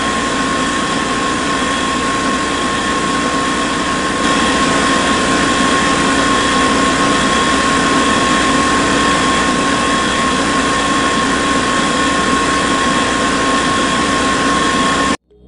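Small electric motor of a homemade model drilling and pumping machine running steadily, with a constant high whine over a hiss. It gets slightly louder about four seconds in and cuts off abruptly near the end.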